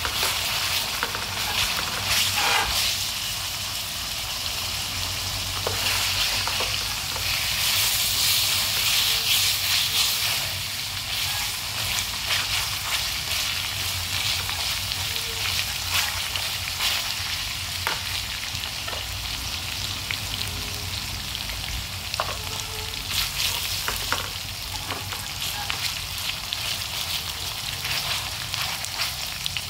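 Pork cutlets coated in minced lemongrass sizzling as they fry in oil in a small metal pan. Short clicks of chopsticks against the pan come through here and there, and the sizzle swells for a couple of seconds about eight seconds in.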